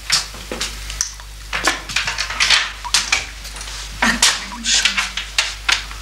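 Irregular clinking and clattering of dishes and cutlery, with a brief low voice in the middle.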